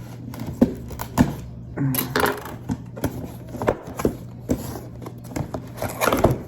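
Cardboard box being opened by hand: tape pulled off and the box handled, giving a string of irregular sharp clicks and knocks with short bursts of rustling.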